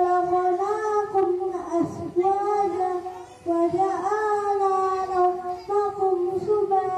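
A boy singing long, held melodic phrases into a microphone, with a short break for breath about three and a half seconds in.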